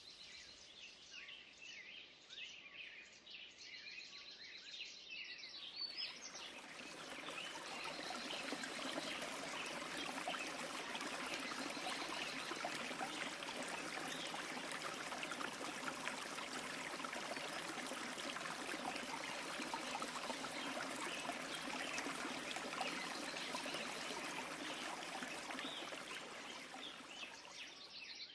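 Birds chirping, then from about six seconds in the steady rushing of a waterfall's falling water takes over, with bird calls still faintly above it until it drops away near the end.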